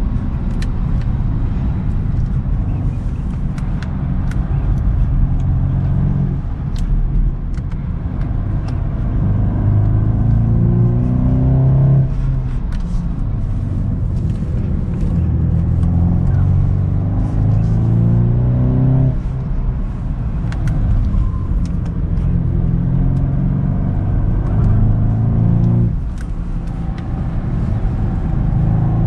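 Exhaust of a 2022 BMW 230i's turbocharged four-cylinder, recorded at the back of the car while it drives. The engine note climbs steadily under acceleration several times, each time dropping back sharply before climbing again.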